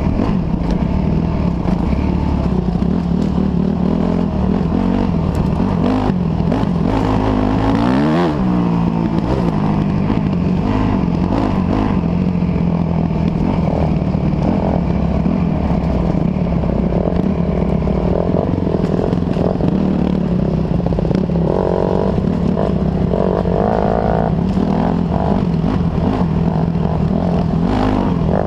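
Off-road dirt bike engine, heard close up from on board, running hard and rising and falling in pitch as the throttle is worked. Scattered knocks and rattles from the bike over the rough trail.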